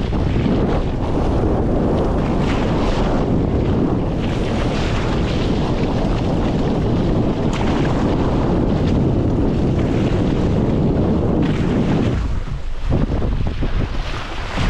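Wind buffeting the microphone over the rush of water along the hull of a small wooden proa under sail, a steady noise that eases briefly near the end.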